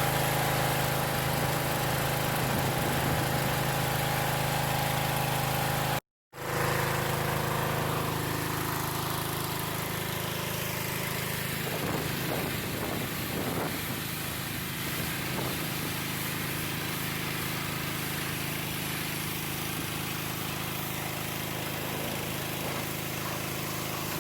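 Small 148cc gas engine of a Craftsman 2000 psi pressure washer running steadily, with the hiss of the water jet over it. The sound cuts out for a split second about six seconds in, then carries on.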